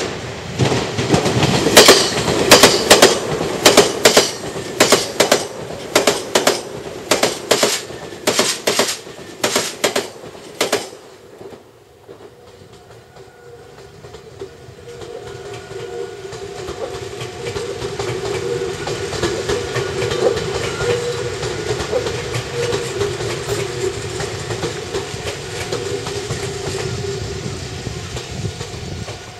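Nankai Kōya Line electric commuter train passing close on the tracks, its wheels clattering over rail joints in quick pairs for about ten seconds. After a short lull a second train comes by more smoothly, with a steady rumble and motor hum that builds and holds to the end.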